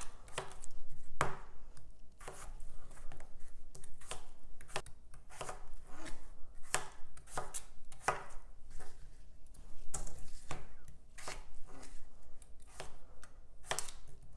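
Large kitchen knife chopping peeled raw potatoes on a cutting board: a long run of sharp knocks as the blade cuts through and hits the board, uneven, about one to two cuts a second.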